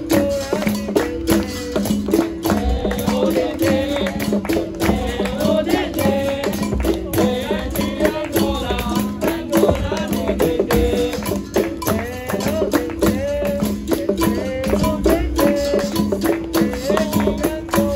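Live capoeira roda music: a berimbau twanging between two notes with its caxixi shaker rattle, pandeiro jingles and hand-drum strikes in a steady, quick rhythm, and a group singing over the top.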